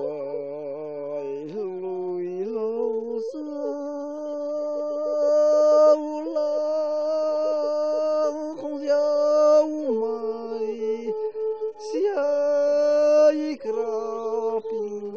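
Singing: voices holding long, steady notes that step from one pitch to the next, phrase after phrase, with short breaks between phrases.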